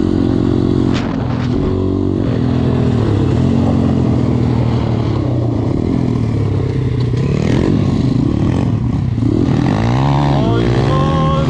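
Dirt bike engine running, its pitch rising and falling as the throttle is worked, with sharper revs near the end.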